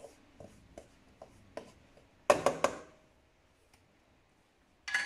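Silicone spatula stirring pizza dough in an enamel mixing bowl, with light scraping strokes about twice a second, then a quick run of four or five louder knocks about two seconds in.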